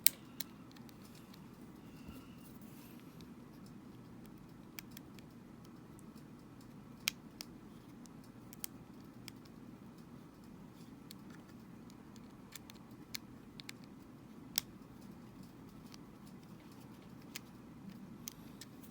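Scattered faint clicks and taps of small plastic Joy-Con parts being handled and fitted back together, over a low steady hum.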